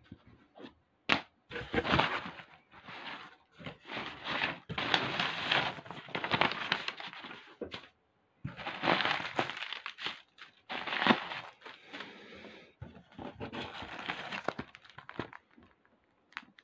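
Cardboard box flaps being opened and handled, with plastic packing air pillows and a plastic sleeve rustling and crinkling in irregular bursts. A couple of sharp cracks come about a second in and again around the middle.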